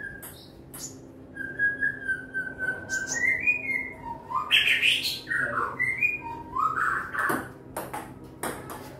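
Long whistled notes sliding slowly up and down in pitch, with a few short sharp clicks between them.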